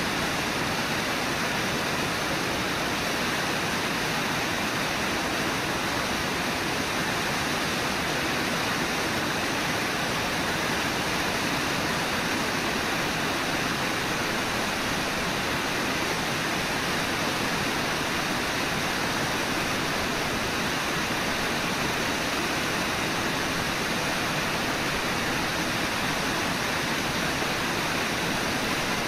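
Steady rush of a waterfall and river rapids: a constant, even roar of water that does not change.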